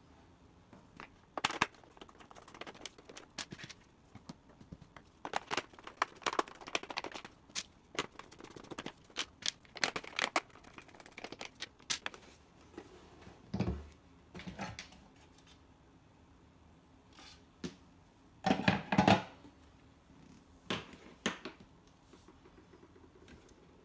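Hands working on a battery charger: irregular clicks, scrapes and rustles of small plastic parts being handled, with a couple of heavier knocks about halfway and again about two-thirds through. No fan running.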